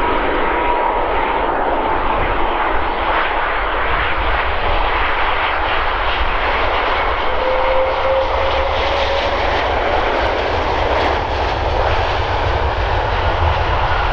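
Airbus A330 widebody jet landing: loud, steady turbofan noise with a deep rumble and a thin whine that fades over the first seconds. About halfway through, on the runway, the engines spool up with a rising tone and the noise grows brighter, typical of reverse thrust on the landing rollout.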